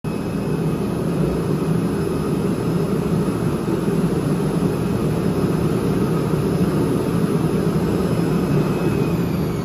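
CNC oscillating knife cutting machine running: a loud, steady drone with a faint high whine over it, which begins to fall in pitch near the end.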